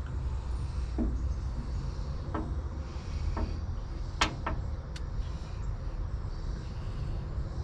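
Light clicks and ticks from handling fishing tackle while rigging a rod, about six scattered through, over a steady low rumble.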